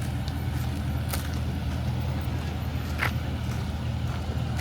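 Car engine running steadily at low speed while the car is backed up and parked, a low hum with a couple of short clicks about one and three seconds in.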